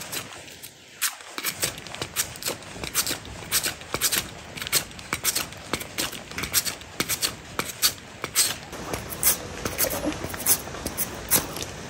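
Peeled cassava root being grated on a red metal grater: repeated rasping strokes, about two to three a second.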